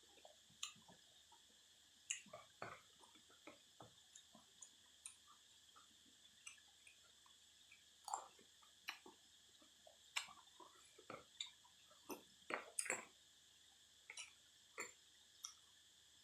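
Close-up eating sounds: irregular wet smacks, slurps and clicks of chewing noodle soup. Underneath is a steady high drone of cicadas singing.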